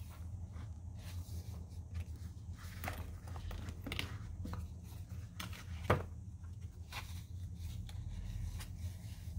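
Soft rustles, scrapes and taps of a leather notebook cover, its paper insert and small cards being handled, with one sharper tap about six seconds in. A steady low hum runs underneath.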